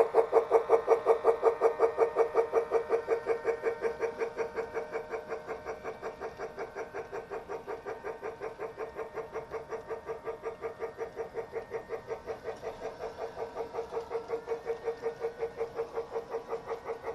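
Lionel Polar Express toy locomotive's electronic sound effects through its small speaker: a rapid, evenly repeating pitched pulse of about four to five beats a second. It fades through the middle and grows louder again near the end, as the engine runs away around the track and comes back.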